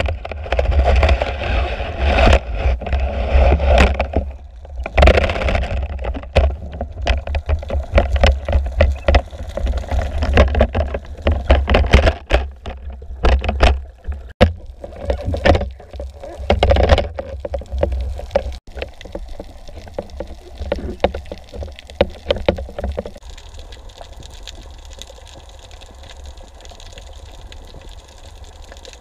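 Underwater sound picked up by a diver's camera: water churning and gurgling, with many sharp clicks and knocks as the camera is moved about. About two-thirds of the way through it settles to a steadier, quieter hiss as the camera holds still.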